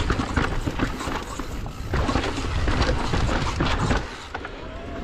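Mountain bike riding over a rocky dirt trail: the tyres crunch and the bike rattles with many quick, irregular knocks, over a low rumble of wind on the microphone. It eases off briefly about four seconds in.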